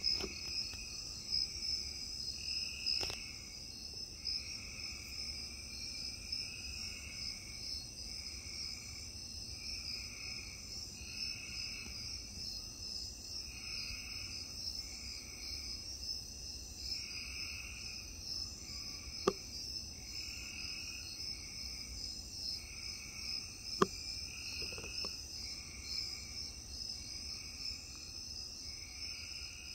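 Night insect chorus: crickets keep up a steady high trill, with a lower insect call pulsing about once a second beneath it. Two sharp clicks stand out in the second half, over a faint low rumble.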